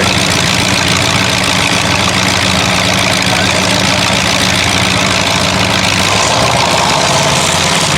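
Several demolition derby cars' engines running together at idle, a loud, steady drone.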